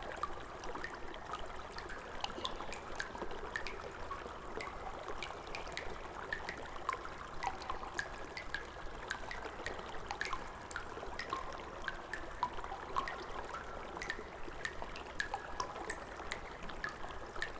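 Sewer ambience: water trickling and running steadily, with many small drips and plinks scattered throughout, over a low steady rumble.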